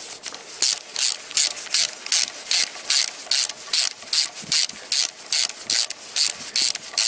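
Ratchet wrench clicking in short, even back-strokes, about two and a half a second, as it runs down camshaft bearing-cap bolts on a Toyota VVT-i cylinder head in a light pre-tightening pass.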